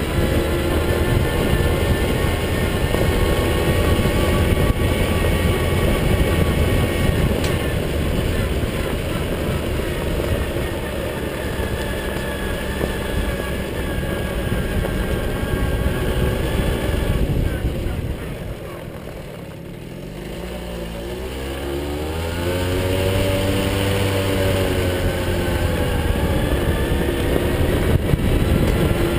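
1982 Tomos A3MS moped's 49cc single-cylinder two-stroke engine running steadily under way. About eighteen seconds in the throttle is eased and the engine note drops away, then the revs climb again in a rising whine and settle back to a steady run.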